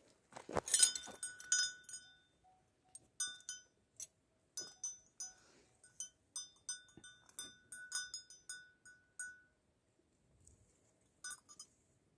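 Light metal dog chain clinking and rattling in short, irregular bursts as a Tibetan Mastiff puppy tugs and moves on it. The busiest, loudest rattle comes in the first two seconds, then single clinks follow every second or so, with a last short rattle near the end.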